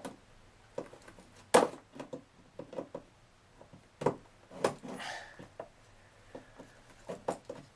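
Wire dykes (diagonal cutters) being worked at a fill-tube tie inside a Kirby vacuum's cloth bag: scattered clicks and rustling from handling, with a few sharp snaps, the loudest about a second and a half in.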